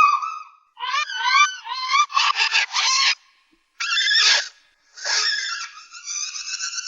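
High-pitched chirping, warbling sci-fi sound effect, several bursts of quick rising and falling trills separated by short gaps, with a buzzier stretch about two seconds in.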